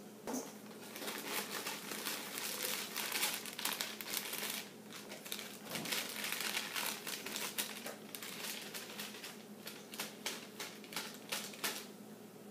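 Plastic bag of brownie mix crinkling continuously as it is handled and worked open, with many irregular sharp crackles.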